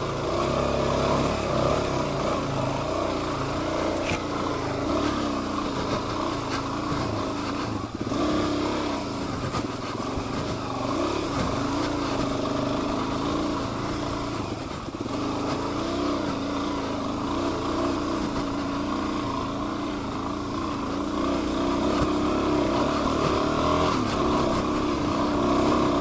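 Suzuki DR-Z400 dual-sport motorcycle's single-cylinder four-stroke engine running through a mud section, its pitch rising and falling with the throttle.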